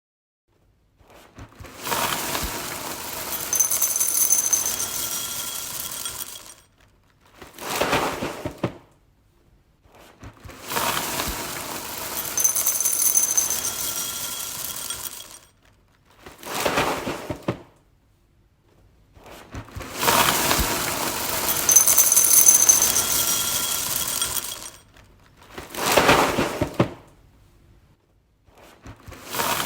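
Dry cereal poured into a bowl, a dense rattling pour. It comes as three long pours of several seconds, each followed by a short second pour, with brief pauses between them and another pour starting at the end.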